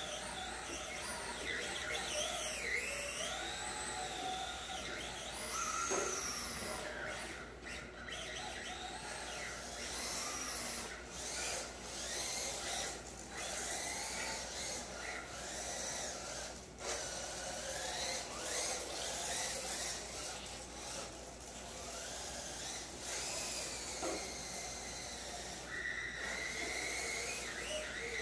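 The electric motors of two 1/10-scale RC drift cars, an MST RMX and a Sakura D4, whining. The pitch keeps rising and falling as the throttle is worked through the drifts.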